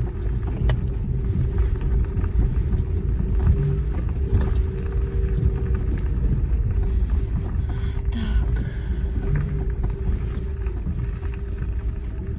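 Steady low rumble of a car being driven, with engine and road noise heard from inside the cabin and a faint constant hum.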